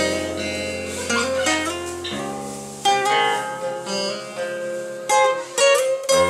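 Music played on a plucked string instrument: picked notes over a held bass note that drops out about two seconds in, with a few sharp strummed strokes near the end.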